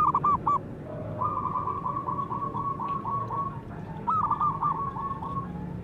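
Zebra dove cooing: a few quick notes at the start, then a long rapid string of short staccato coos, and a second phrase of quick coos about four seconds in.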